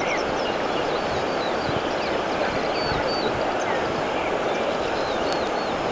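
Steady rush of river water, with many short, quick chirps of small birds over it.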